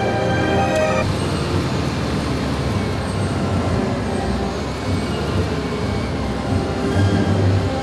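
Orchestral music cuts off about a second in, giving way to steady mechanical rumble and outdoor noise from an aircraft tow tractor pulling a Boeing 787 across the apron.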